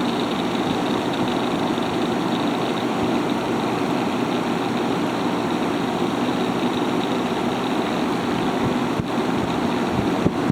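Haier ESA410J-RGB window air conditioner running with its fan on high: a steady rush of air from the evaporator side, with the compressor on and the unit cooling.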